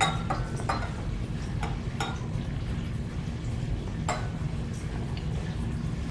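Glass lab beakers and graduated cylinders clinking and tapping against each other and the bench as solution is poured between them: a scatter of short sharp clinks, the loudest at the very start and about four seconds in, over a steady low room hum.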